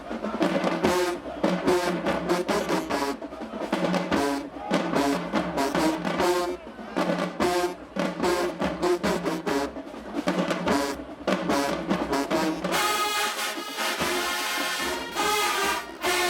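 Marching band playing: a brass section over a drumline keeping a steady beat. About thirteen seconds in, the low drums drop away and the sound turns brighter.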